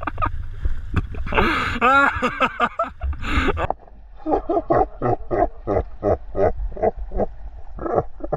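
A person laughing hard in rapid bursts. About a second and a half in, a loud rush of noise comes in with a rising and falling cry, and the laughter resumes after about four seconds.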